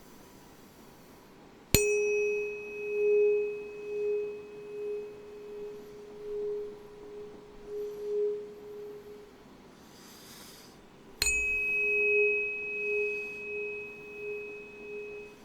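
A tuning fork struck twice, each strike ringing a single steady tone with a faint, higher clang overtone that fades sooner. The first ring lasts about eight seconds, swelling and fading in loudness as it goes; the second strike comes near the middle and is still ringing at the end.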